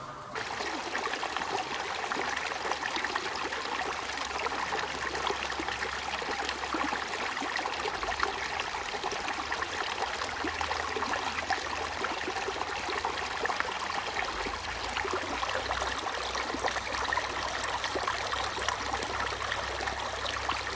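Shallow water running and babbling over and between rocks, a steady rushing trickle that starts abruptly.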